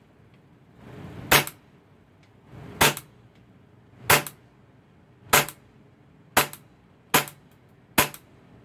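Gas blowback airsoft pistol running on MAPP gas, fired in seven single sharp shots about a second or more apart, the shots coming a little faster toward the end.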